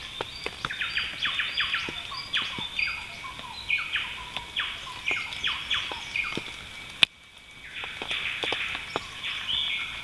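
Rainforest birds calling: a busy run of short chirps and quick falling whistles over a steady high background hum. A single sharp click sounds about seven seconds in, and the background drops away briefly after it.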